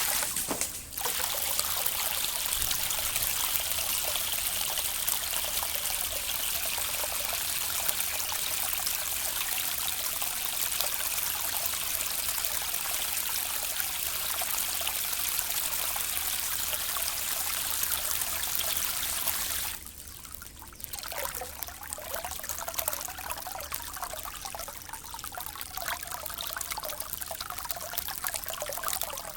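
Water trickling and rippling in a steady rush. About two-thirds of the way through it drops sharply and carries on quieter, with more separate trickles.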